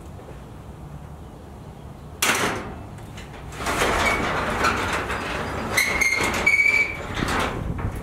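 Overhead sectional garage door being pushed open by hand: a sharp clunk about two seconds in, then the door rolling up its tracks with a steady rumble and short high squeaks from the rollers.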